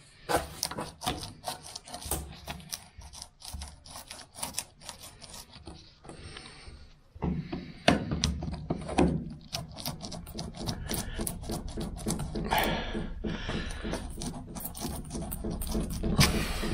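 Long-nose pliers prying and pulling a brittle, perished rubber window seal out of its metal channel on a VW T2 Bay camper van: a rapid run of small cracks, clicks and scrapes, heavier in the second half.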